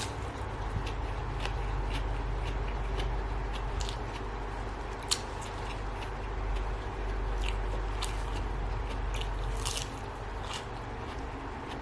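Irregular crisp crunches and clicks of salad ingredients being handled and cut, over a steady low hum.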